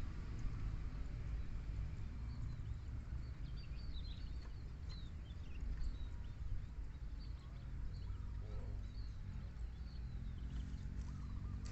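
Small birds chirping, short high calls scattered through the middle, over a steady low rumble.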